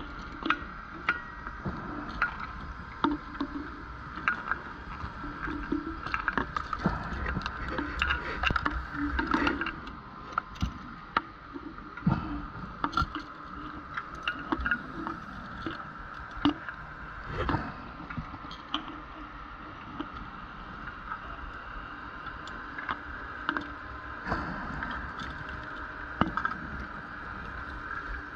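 Underwater recording on a scuba dive: a diver breathing through a regulator, with rushes of exhaled bubbles every few seconds over a steady hum and many scattered sharp clicks.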